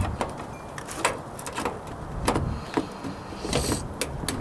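Irregular clicks, taps and scrapes of a plastic washer water inlet valve and its wire leads being handled and slid back into the washer's sheet-metal cabinet.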